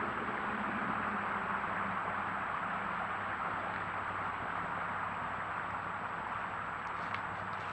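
Steady hiss of a trail camera's microphone and electronics, with a faint, steady high whine, and a few faint ticks near the end.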